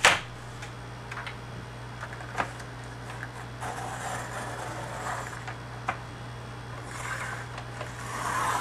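A blade drawn lightly along a ruler to score paper without cutting through it: two soft scraping strokes, one about halfway through and one near the end, with a few small clicks between them.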